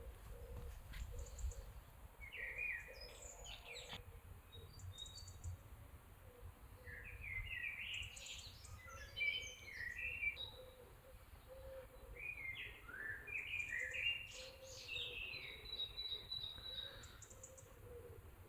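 Songbirds singing: quick chirps and trills in three spells of song a few seconds apart, with a higher held note near the end. A faint low rumble runs underneath.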